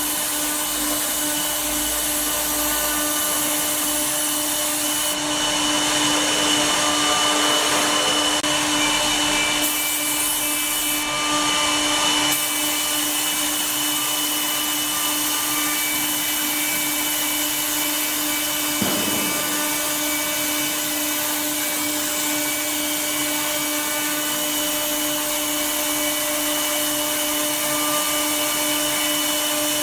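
Woodworking CNC router running and cutting wood: a steady spindle whine over a continuous hiss. The hiss swells for a few seconds about a third of the way in.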